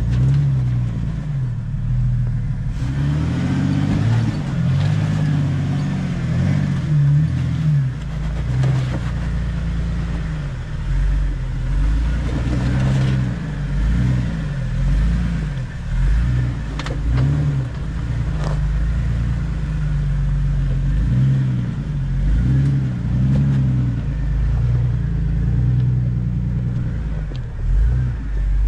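Jeep Wrangler TJ engine being throttled up and down again and again while crawling off-road, its pitch rising and falling about every second or so. A few sharp knocks come through around the middle.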